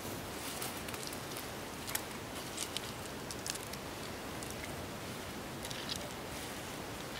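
Hands scooping moist fishing groundbait from a thin plastic bag: the bag crinkles and the bait squishes in a few short, scattered crackles over a steady background hiss.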